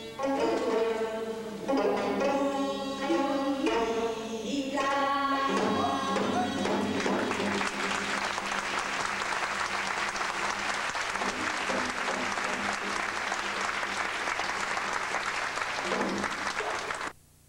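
Gayageum byeongchang: singers performing a Korean folk song to gayageum, janggu hourglass drum and bamboo flutes, the music ending about six seconds in. Audience applause follows for about ten seconds and cuts off suddenly near the end.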